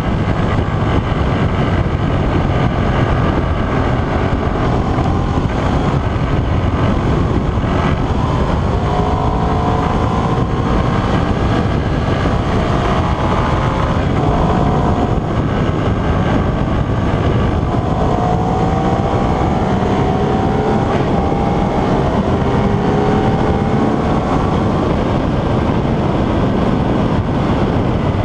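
Ducati Streetfighter 848's L-twin engine running under way, heard from the handlebars with steady wind rush on the microphone. Its pitch climbs several times as the bike accelerates.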